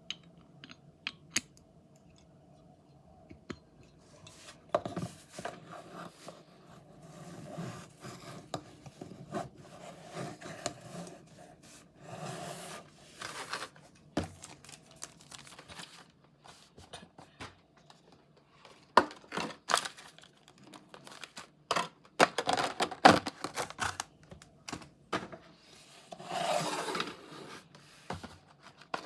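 Packaging being opened and handled by hand: tearing, rubbing and scraping of cardboard and plastic, with scattered sharp clicks and taps, the loudest in the second half.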